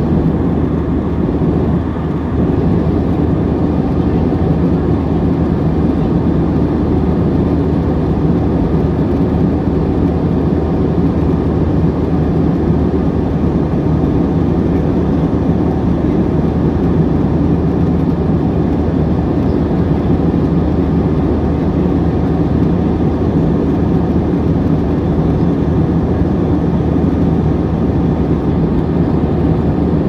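Jet airliner cabin noise at cruise: a steady, deep rush of engine and airflow sound heard from inside the cabin.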